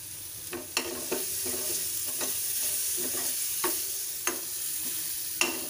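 Onions and green chilli paste sizzling in oil in a metal pan while a metal spoon stirs, scraping and clinking against the pan about every half second with a brief ring.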